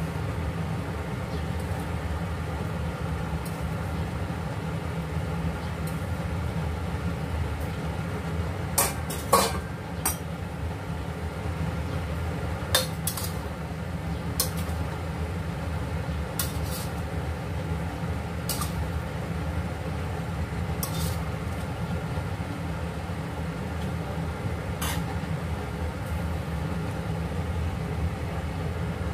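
Metal spatula knocking and scraping against a stainless-steel pan while stir-frying vegetables, sharp clinks every couple of seconds with a cluster about a third of the way in, over a steady low hum.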